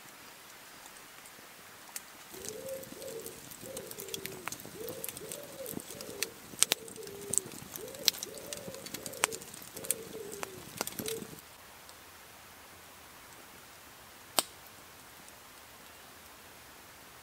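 A pigeon cooing, a run of repeated low coos from about two seconds in until about eleven seconds in. Sharp crackles and pops from a wood campfire come through it, with one louder pop near the end.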